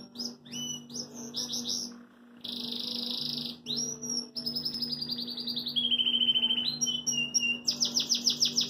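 A canary singing a long, varied song: rolling series of rapidly repeated notes at changing pitches, a buzzy stretch about three seconds in, and a fast high series near the end. A faint low steady hum runs underneath.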